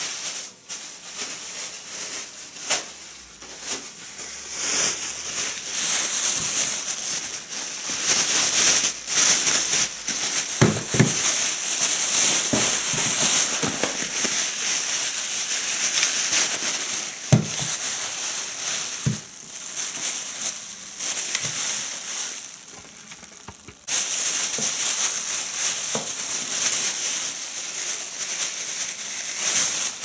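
Clear plastic bag crinkling and rustling as it is handled and wrapped around a small electric coffee grinder, with scattered sharp clicks and a few light knocks. The rustling drops off briefly, then picks up again near the end.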